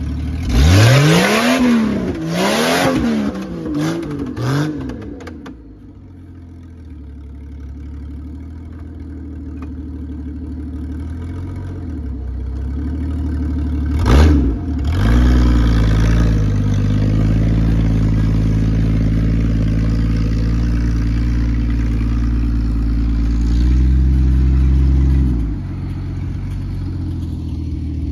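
Jeep Cherokee XJ engine revved hard four times in quick succession, pitch rising and falling with each rev, over a hiss of tyres spinning in mud. After a break it runs steadily, swelling a little before it drops back.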